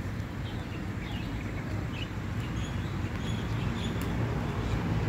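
Outdoor ambience: small birds chirping now and then over a steady low rumble of traffic or wind.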